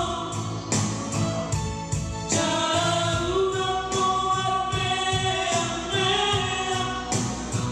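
Two men singing a Batak song together into microphones over instrumental accompaniment with a steady beat, holding and sliding between long notes.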